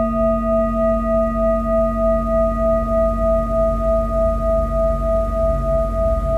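Large metal singing bowl ringing after a strike: a low hum with several higher overtones, held steady with an even wobble of about three or four pulses a second.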